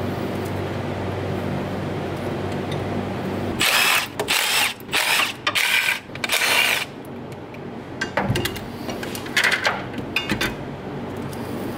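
A steady low hum, then about four seconds in several short loud bursts of a tool working a fastener over about three seconds, followed by lighter clicks and knocks: the heavy cable's terminal being fastened at the starter of an LS V8 engine.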